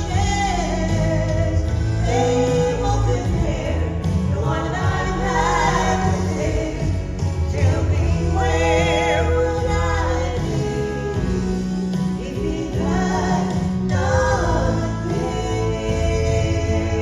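A female gospel vocal trio singing in harmony over instrumental accompaniment with a steady bass line.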